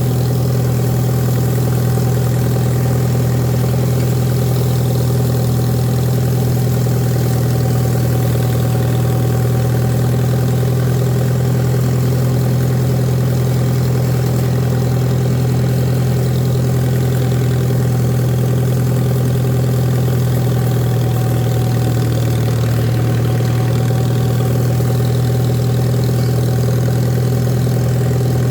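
Farmall A tractor's four-cylinder gasoline engine running at a steady speed, its pitch and level unchanging throughout.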